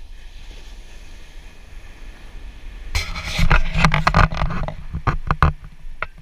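Steady low rumble of wind and surf on the beach. About three seconds in come some two seconds of loud knocks and rustling close to the microphone, thinning to a few separate clicks.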